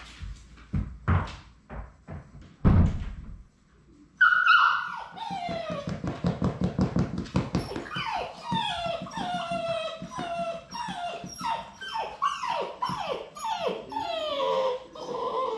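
Labrador Retriever puppies whining and yelping: a long run of high cries that each fall in pitch, repeating about twice a second, starting about four seconds in. A few thumps come before the cries.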